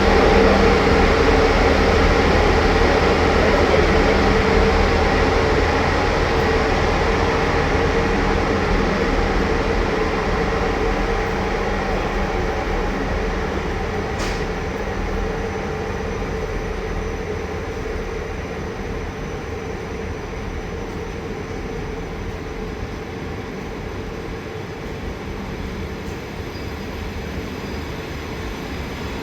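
060-EA electric locomotive-hauled regional train pulling out of the station and moving away, its running noise and steady traction hum slowly fading.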